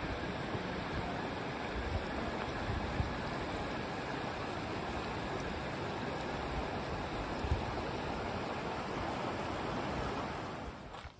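Rocky creek rushing over boulders and small rapids, a steady, even roar of water, with a few brief low thumps over it.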